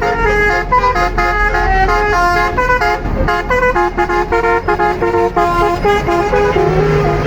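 Tour bus's Basuri telolet horn playing a fast melody of short stepped notes, one after another, with a steady low hum underneath.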